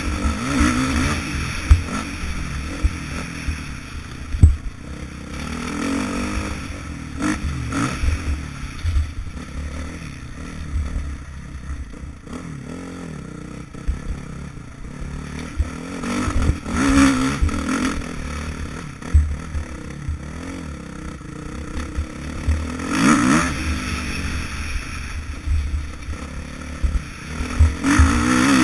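Motocross bike engine revving up and down repeatedly as it is ridden around a dirt track, heard from a helmet-mounted camera, with occasional sharp knocks and clatter.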